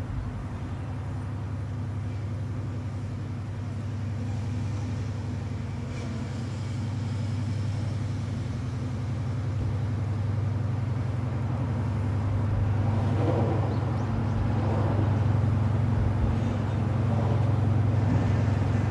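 Japan Coast Guard patrol vessel's engines running at speed as a steady low drone that grows louder as the ship approaches, with water wash rising near the end.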